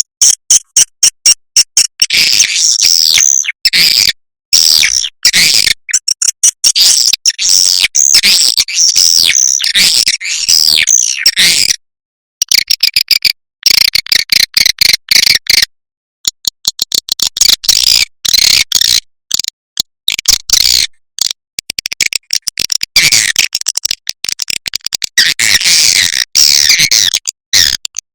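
Edible-nest swiftlet calls on a looped lure recording: dense high twittering chirps mixed with rapid clicking, cut by abrupt dead-silent gaps. It is a call-and-roost sound played to draw swiftlets into a swiftlet house.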